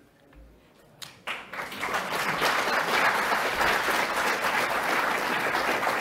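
Audience applause. It starts about a second in with a few lone claps, builds quickly into a steady round of clapping and keeps going.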